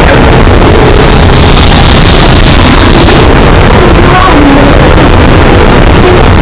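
Harsh noise music: a dense wall of heavily distorted, clipped noise at full volume. A high hiss slides downward over the first few seconds, and wavering tones waver beneath it in the second half.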